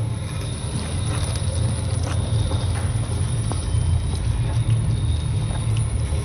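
Small tracked robot vehicle driving over dirt and gravel: its DC drive motors and 3D-printed rubber tracks give a steady low rumble, with a thin steady high tone and scattered clicks.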